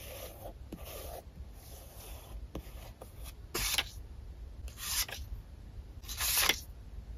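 Paper label stickers being handled with metal tweezers: soft rustling of the sticker sheets, a few light ticks, and three short, crisp paper sounds, the loudest near the end.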